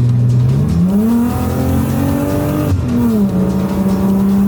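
BMW E36's M52B28 2.8-litre straight-six revving under acceleration: the pitch climbs, drops a little under three seconds in as the automatic gearbox shifts up, then holds steady.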